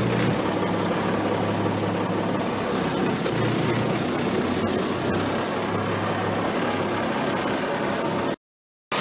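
Diesel engine of a Sides Renault 4x4 forest fire truck running steadily, heard from inside the cab. It cuts off abruptly near the end.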